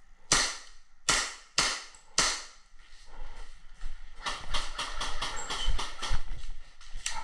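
Four sharp airsoft gun shots, less than a second apart, followed by a run of quieter clicks, gear rattle and footsteps as the player moves across the room.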